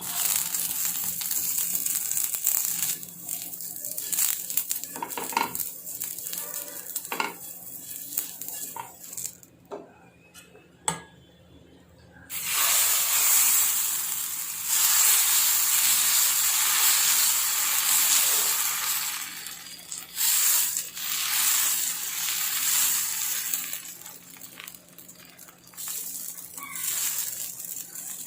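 Multigrain dosa batter and oil sizzling on a hot tava, in loud spells, the loudest starting suddenly about twelve seconds in. A few sharp utensil knocks come in the quieter stretch before it.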